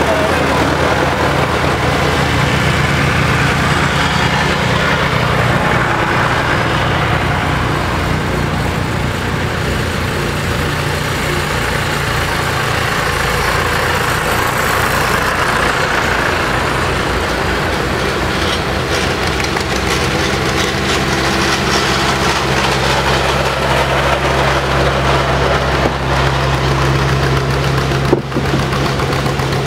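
Several farm tractor engines running steadily as the tractors drive past slowly one after another. Near the end an old John Deere tractor comes up close.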